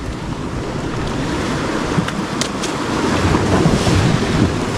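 Steady rushing of wind and surf, with wind buffeting the microphone.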